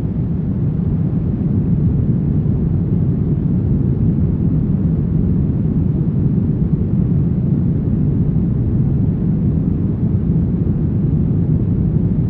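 Brown noise: a steady, deep rumbling hiss with most of its energy low and hardly any highs, unchanging throughout.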